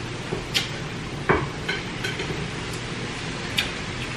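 Chopsticks clicking and scraping against porcelain rice bowls and plates during a meal: a handful of light, scattered clicks over steady low background noise.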